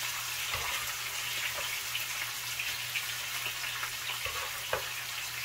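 Beef strips sizzling in hot oil in a frying pan on high heat as they brown: a steady hiss with a few small pops.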